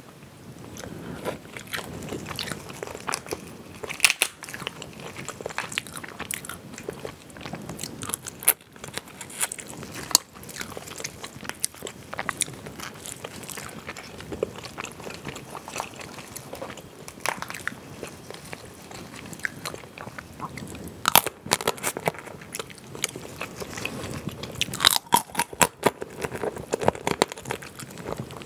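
Close-miked eating of spicy crayfish: shells cracking and snapping as they are pulled apart with gloved hands, with wet chewing of the meat. The sharpest cracks come about four seconds in and in a cluster near the end.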